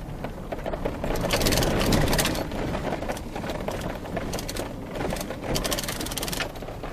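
A vehicle driving on a rough road, with steady rumbling and two spells of dense rattling and crunching, about a second in and again around five seconds in.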